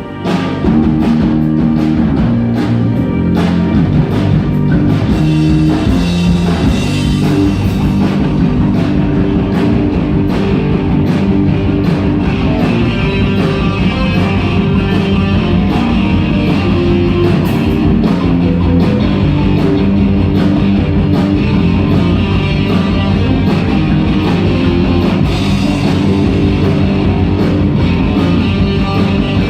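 Rock band playing: guitar over a steady drum-kit beat.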